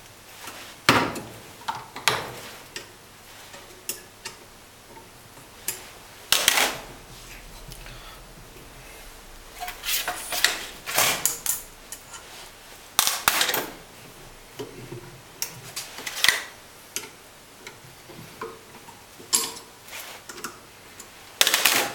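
Metal tools and parts clinking and knocking while a diesel unit pump is taken apart in a bench clamping fixture: scattered sharp clicks and clanks at irregular intervals.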